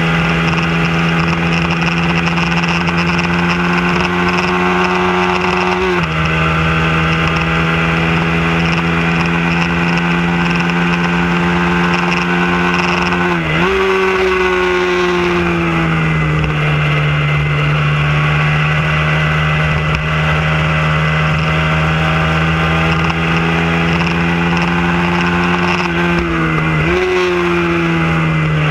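A Hyosung motorcycle's engine, heard from on board, pulling hard at high revs and holding a near-steady pitch. Short gear-change breaks come about 6, 13 and 27 seconds in. After the middle one the revs sag for a few seconds, then climb slowly again.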